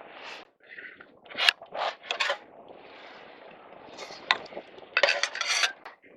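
Short scrapes and clinks of hard objects being handled, coming in several clusters, the loudest near the end.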